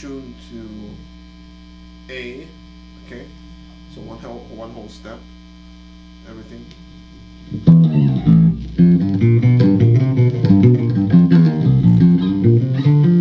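Jackson B7 baritone seven-string electric guitar with EMG active pickups, played through an amplifier. For the first seven seconds or so there is only amp hum and a few soft string sounds. Then loud, low riffing starts and carries on.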